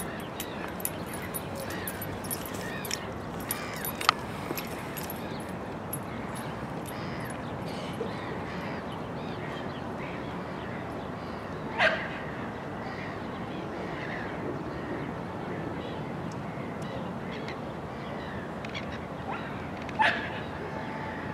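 A dog barks twice, short and sharp, about twelve and twenty seconds in, over steady background noise; a single sharp click sounds about four seconds in.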